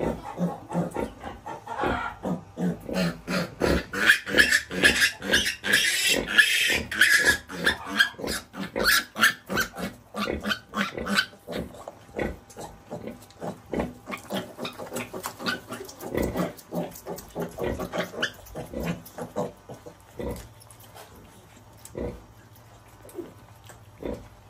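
Piglets squealing and grunting in quick succession while clamouring to suckle. The squeals are shrillest about four to eight seconds in, then thin out to scattered grunts after about twelve seconds, with only a few left near the end.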